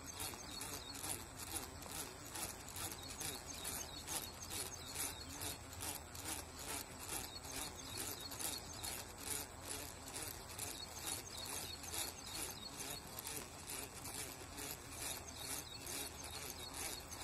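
Spinning reel cranked steadily to retrieve a spoon lure: a rhythmic rubbing of the reel's turning gears, about three strokes a second, over a thin steady high whine.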